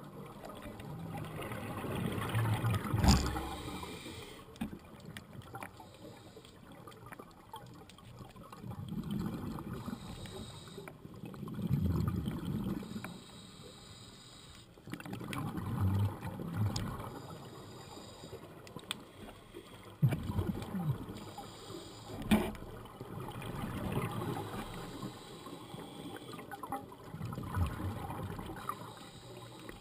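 Scuba regulator breathing recorded underwater: exhaled bubbles rumble and gurgle in swells every few seconds. A few sharp clicks or knocks cut through.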